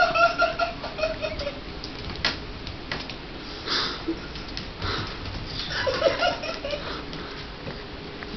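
Puppy whining: a high, drawn-out whimper that trails off about a second and a half in, then one more short whine about six seconds in, with a few faint taps between.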